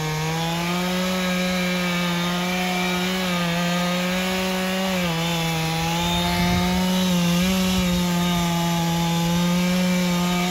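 Two-stroke chainsaw running at high revs in the back cut of a large conifer, cutting steadily under load. Its pitch sags slightly now and then as the chain bites.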